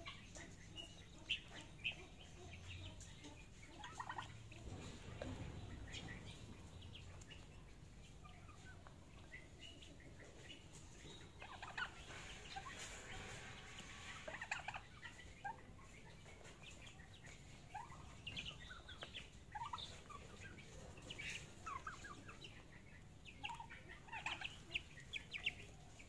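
Young turkeys and chickens calling while they peck at feed: scattered short, high calls and clucks, busiest about halfway through and again near the end.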